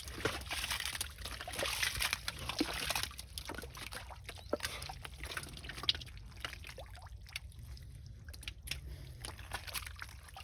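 Water sloshing and splashing, busier for the first three seconds, then scattered small splashes and drips.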